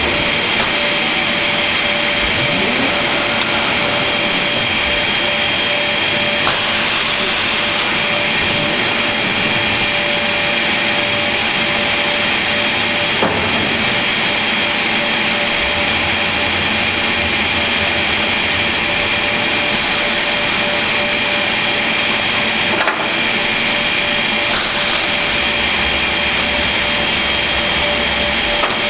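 Automatic MDF board-cutting machine running and sawing board with a steady, loud noise, with a few faint knocks along the way.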